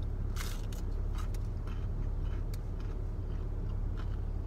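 Steady low hum of a car's engine idling, heard from inside the cabin. Over it come a few faint crunches and chewing sounds as a crispy breaded chicken nugget is eaten, the clearest about half a second in.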